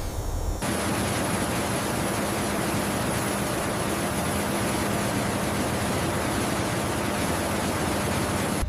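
A steady rushing noise with a faint low hum underneath, starting suddenly about half a second in and cutting off suddenly just before the end.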